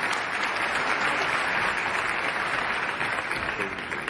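Large audience in a hall applauding steadily, the clapping easing off near the end.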